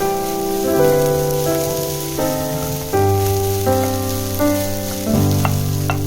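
Fried rice sizzling steadily in a pan under soft background music of sustained keyboard chords that change about every second; a few light clicks near the end.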